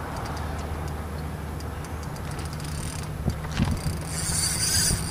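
Fishing reel ticking in short bursts as a hooked fish is played, once about three seconds in and longer near the end, over a steady low hum.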